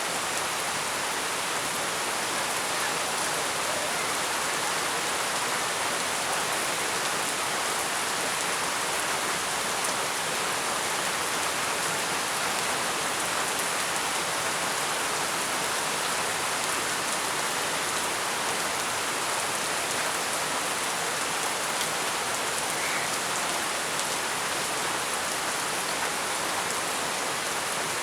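Heavy rain falling steadily, a dense even hiss of drops on surfaces with no letup.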